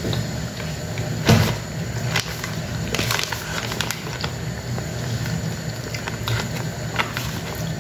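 A plastic sweets package crinkling and crackling in the hands in scattered short bursts, with a cluster about three seconds in, along with soft chewing of sakura mochi, over a steady low hum.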